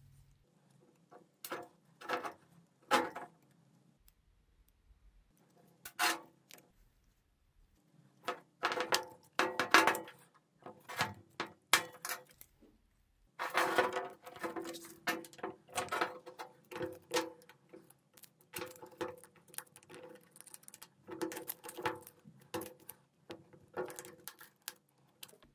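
Hand work on greasy hammer-drill chuck parts: scattered clicks and knocks of metal and rubber parts being handled. About halfway through it turns into a denser run of scraping and tapping as a small screwdriver and a flat blade scrape grease and pry at the parts.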